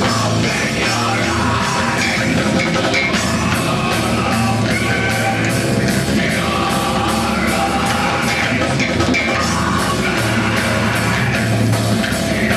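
Live rock band playing loudly and without a break: electric guitar and drum kit with a steady beat.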